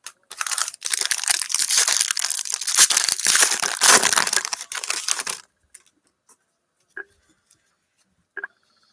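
A foil trading-card pack being torn open and its wrapper crinkled for about five seconds, then a few faint clicks of cards being handled.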